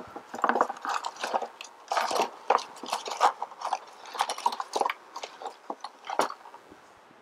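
Quick irregular clicks and scrapes of small metal hex keys being handled and fitted to the tiny screws of a 3D printer's extruder housing. The clicking stops near the end.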